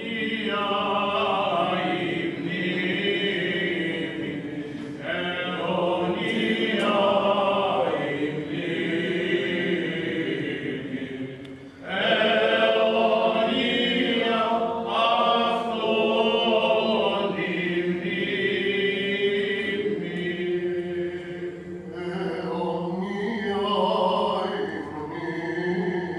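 Byzantine chant of the Greek Orthodox funeral service: a melody in long phrases over a steady low held note, with a short break about twelve seconds in.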